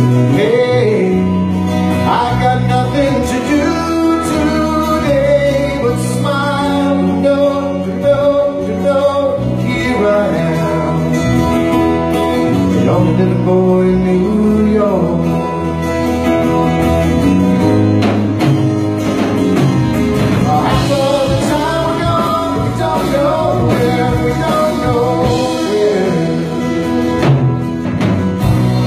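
Live band performing a song: a man sings lead over acoustic guitar and the rest of the band.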